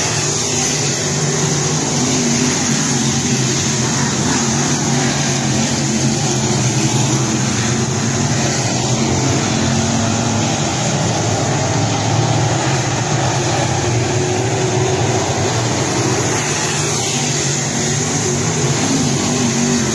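A pack of dirt late model race cars running their V8 engines hard around a dirt oval, blending into one loud, steady drone whose pitch shifts a little as cars pass and go down the straights.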